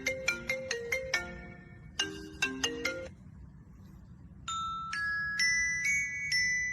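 A ringtone-like tune on a marimba-type mallet sound: quick struck notes in a melody that stops about 3 seconds in. After a short pause, higher chime tones take over, each note held longer.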